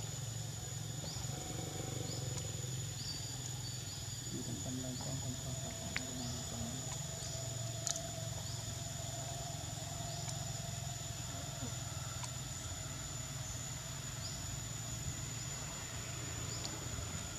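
Forest ambience: a steady high-pitched insect drone with short rising chirps repeating about once a second, mostly in the first few seconds, over a low steady rumble, with two faint clicks midway.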